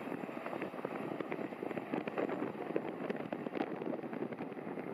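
Boeing 929-100 Jetfoil running foilborne past, driven by gas-turbine water jets: a steady rushing, crackling noise of the jets and their spray plume, with no engine whine standing out.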